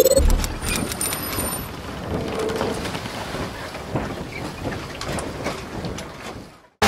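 Logo-intro sound effect: a deep boom right at the start, then a steady noisy hiss with scattered crackles that fades out near the end.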